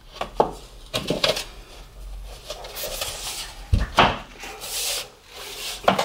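A laminate floor board being handled and fitted into place: scattered wooden knocks and clacks with rubbing and scraping as it slides, and a heavier thump about four seconds in.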